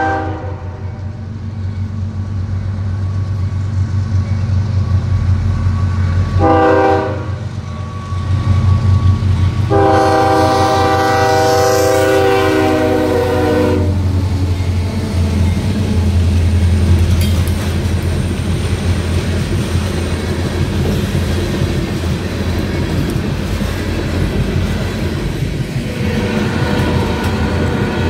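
Diesel freight locomotive horn sounding for a grade crossing: the tail of one long blast at the start, a short blast about six and a half seconds in, and a long blast of about four seconds from about ten seconds in. Then the locomotives' diesel engines rumble past close by, followed by loaded open hopper cars rolling past with steady wheel clatter.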